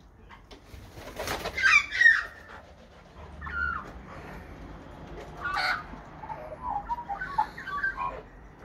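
Australian magpies calling: loud gliding call notes in the first couple of seconds, a few short calls, then a run of quick warbling notes near the end.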